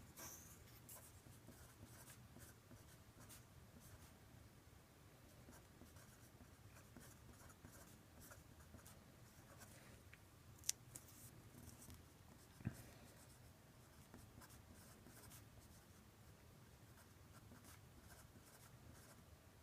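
Faint scratching of handwriting as an equation is written out, with two short sharp taps about eleven and thirteen seconds in.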